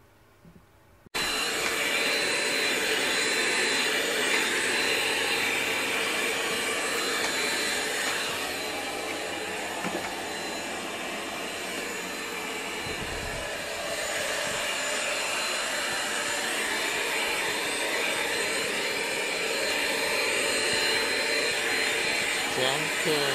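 Steady rushing whir of an electric motor-driven air blower, like a hair dryer or vacuum cleaner. It starts abruptly about a second in and runs on loud and nearly unchanged.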